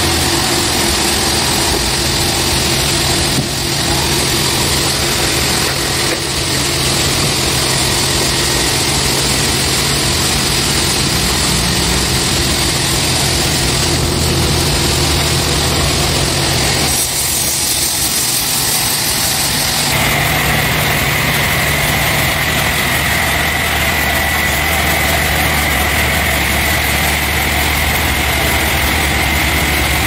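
An engine running steadily at a constant speed. About two-thirds of the way through, the sound shifts and a steady high whine joins in.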